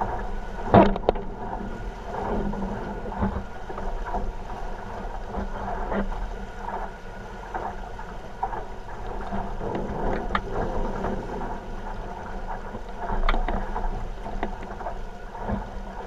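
49er skiff sailing fast through chop: a steady rush of wind on the microphone and water past the hull, broken by several sharp slaps of the hull on waves, the loudest about a second in.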